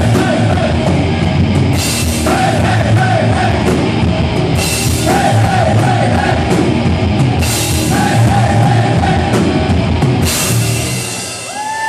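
Rock band playing live and loud: distorted electric guitars, bass and a drum kit, with a crash cymbal about every two and a half seconds and a singer's voice over it. Near the end the band drops away and a high held tone swells in.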